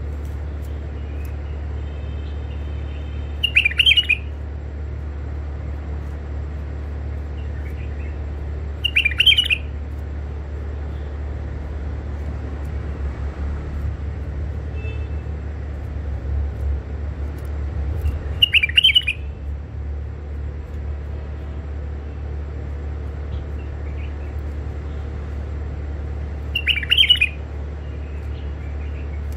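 White-eared bulbul giving four short, bright calls spaced several seconds apart, over a steady low hum.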